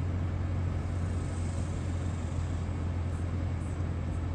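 Steady low hum of a car's engine running, heard from inside the cabin.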